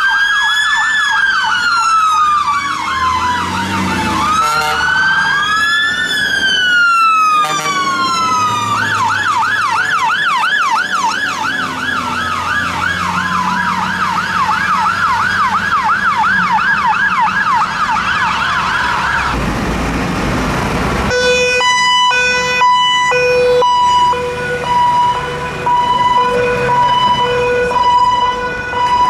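Electronic fire engine sirens: a slow rising and falling wail layered with fast yelping sweeps, the yelp running at about two to three cycles a second from about 9 s in. About 20 s in the sound changes to a steady two-tone horn.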